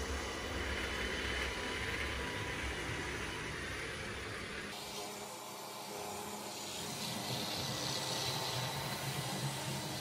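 Roborock S7 MaxV Ultra robot vacuum-mop running across a vinyl plank floor, a steady motor whir with a hiss. The sound changes abruptly a little under halfway through.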